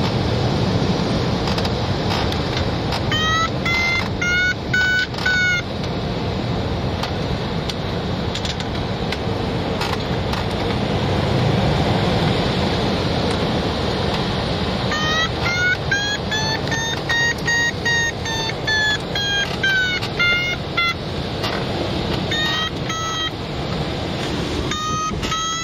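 Airflow rushing steadily past a glider's cockpit, with a flight variometer beeping in strings of short beeps. The beeps rise in pitch a few seconds in, and in the middle they rise and then fall again, signalling the glider climbing in lift.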